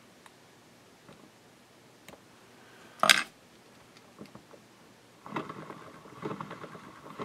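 Rotary fly-tying vise spun by hand to wrap thread down the hook shank, a rhythmic whirring with a steady hum in it, starting a little after five seconds in. Before it, a few faint clicks and one short, sharp clatter about three seconds in.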